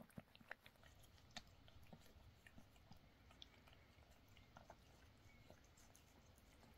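Faint wet licking and smacking as a cat licks a newborn kitten clean after birth. Soft scattered clicks come close together in the first second and a half, then sparser.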